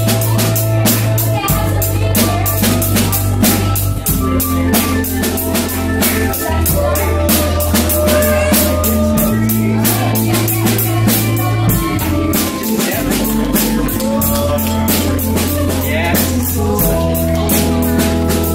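A drum kit played with a fast, steady beat, several hits a second, together with an organ holding long low notes that change every second or two.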